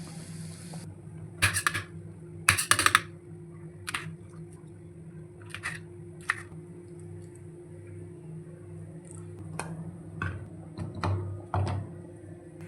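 Scattered short clicks, knocks and a few brief scrapes from objects being handled, the loudest two scrapes early on, over a steady low hum.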